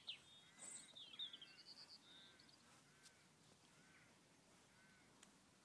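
Faint birds calling in the background: a short call repeated about every two-thirds of a second, with a brief high twittering song near the start.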